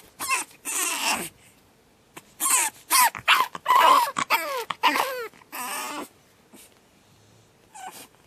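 Pug puppy screaming in its crate on its second night in a new home: a burst of shrill cries in the first second, then a longer run of screams that slide up and down in pitch from about two to six seconds in, and a faint cry near the end.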